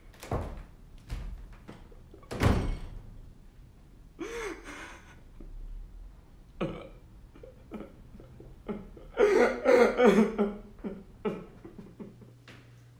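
A few dull thuds in the first seconds, the loudest about two and a half seconds in. Then a man crying: a choked sob about four seconds in, and a louder spell of sobbing from about nine to ten and a half seconds in.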